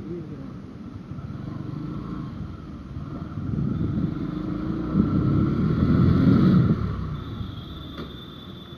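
Motorcycle engine running at low speed, swelling louder about halfway through and easing off near the end. A single sharp click comes just before the end.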